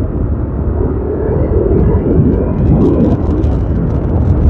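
Yamaha Aerox scooter's single-cylinder engine running steadily at cruising speed of about 40 km/h, heard from the rider's seat as a loud, steady low rumble.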